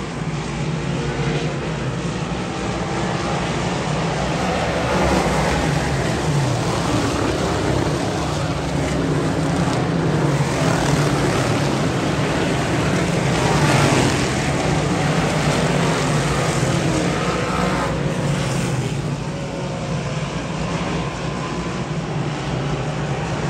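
A pack of dirt-track modified race cars running at speed. Their V8 engines rise and fall in pitch and loudness as cars pass, with the loudest pass about fourteen seconds in.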